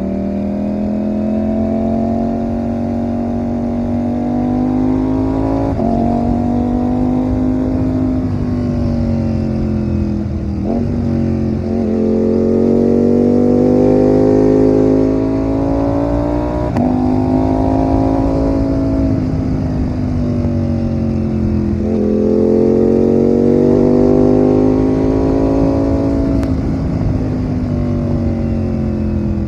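Ducati Panigale V4 motorcycle's V4 engine running under way, its note climbing with the throttle and dropping back again and again, with sharp breaks in pitch about five times through the stretch.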